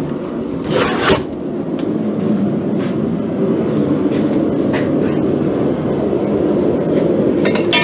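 Steady low roar of a running forge, with a short metal scrape about a second in and a few ringing metal clinks near the end as steel is handled.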